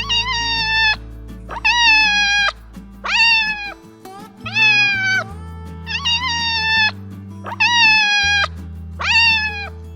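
Kitten meowing over and over: seven high-pitched meows about a second and a half apart, each falling in pitch at its end. Background music plays underneath.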